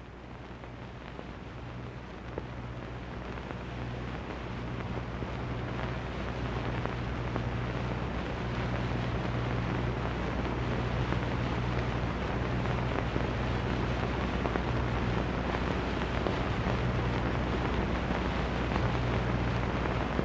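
Background noise of an old film soundtrack: a steady low mains hum under an even hiss. The noise swells over the first several seconds and then holds steady.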